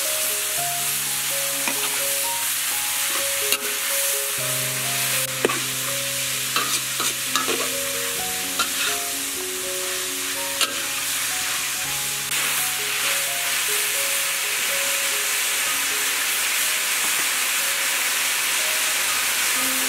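Meat and liver sizzling in a hot wok, with a steady frying hiss and the scattered clicks and scrapes of a metal spatula stirring against the pan, under a soft melodic background music track.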